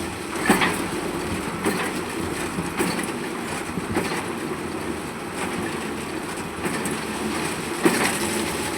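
Heavy construction machinery running steadily, with irregular metallic clanks and knocks over the rumble, about one every second or so, the loudest near the end.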